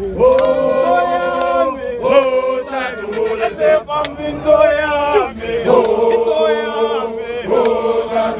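A crowd of protesters singing a struggle song (igwijo) in chorus, mostly men's voices, with long held notes that step between pitches together.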